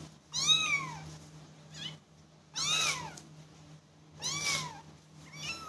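Kitten meowing: three loud, high meows about two seconds apart, each rising then falling in pitch, with fainter short mews between them.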